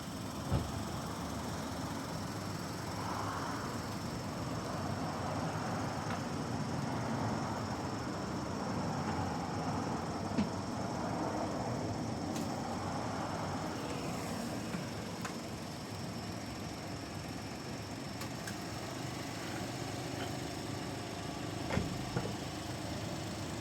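Steady background hum of engines and traffic, with a steady high-pitched whine above it. A few sharp clicks come about half a second in, around ten seconds in, and twice near the end.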